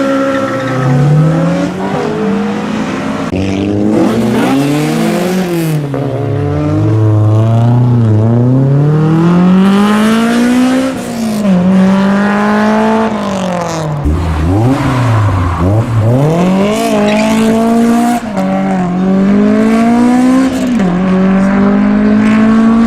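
Honda S2000's F20C inline-four revving hard at high rpm. Its pitch climbs, drops back and climbs again several times over.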